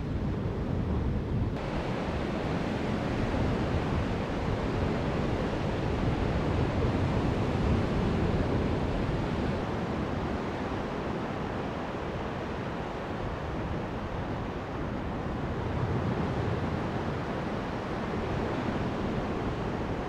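Strong wind buffeting the microphone: a steady low rush of noise, with beach surf washing underneath.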